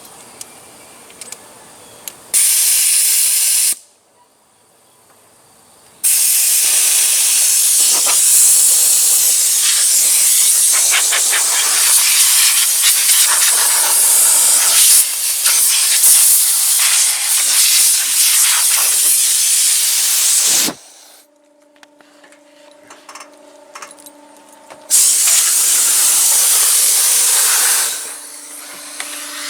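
Loud pressurised hissing spray in long bursts, the longest about fourteen seconds, aimed at a seized mower-deck pulley. In one pause a faint steady hum can be heard.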